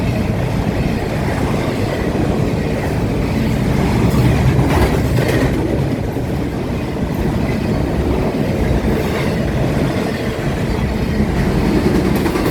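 Norfolk Southern train rolling past, with a steady rumble and the clatter of wheels on the rail joints.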